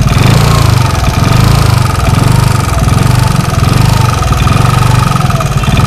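Yamaha NMAX single-cylinder scooter engine idling with a rough, heavy, muffled mechanical noise from the top end. Its level swells and eases about once a second. The mechanic hears it as heavier than the jingling of a loose cam chain and tensioner, and suspects a worn rocker arm.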